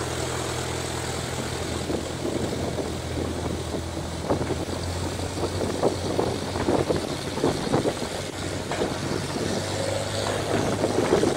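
Light single-engine propeller airplane's engine running at low power with a steady drone while it taxis. Ragged bursts of noise lie over it from about four seconds in.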